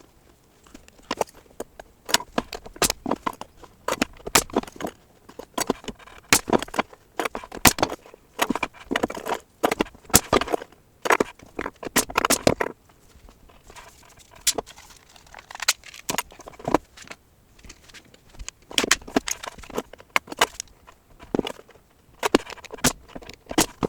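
Irregular sharp clicks and knocks of small wooden boards and tools being handled and set down on a wooden panel, some coming in quick clusters.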